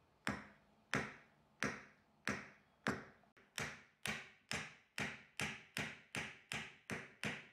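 Hammer striking a wooden board laid over the end of a screwdriver's steel shaft, driving the shaft into a drilled wooden handle. A steady run of sharp blows that come faster, from about one every two-thirds of a second to about three a second near the end.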